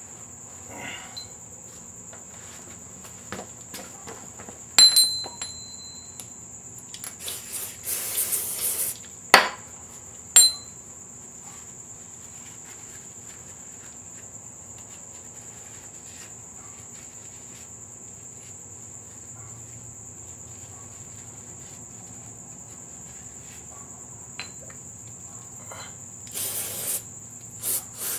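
Metal parts and tools clinking and rattling as rocker-arm hardware is handled on a Ford 302 V8's cylinder head. The sharpest clinks ring briefly, around five, nine and ten seconds in, with a short rattle just before them and another brief clatter near the end. A steady high-pitched tone sounds underneath.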